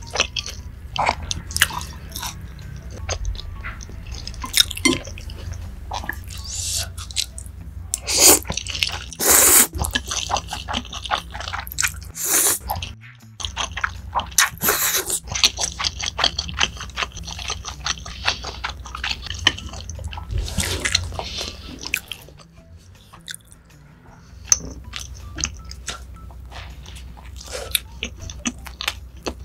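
Close-miked eating sounds: slurping and chewing spicy stir-fried instant noodles, with many wet mouth clicks and smacks. Near the end comes biting and chewing into a soft cheeseburger bun.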